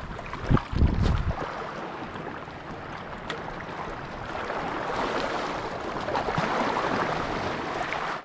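Sea water lapping and sloshing against shoreline rocks in a steady wash, with a few low thumps about half a second to a second in.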